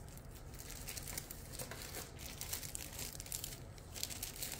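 Clear plastic kit packaging being handled, crinkling in a run of small crackles.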